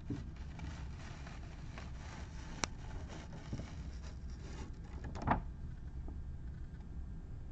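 Faint handling noises over a low steady hum: a sharp click about two and a half seconds in and a brief rustle or rub a little after five seconds.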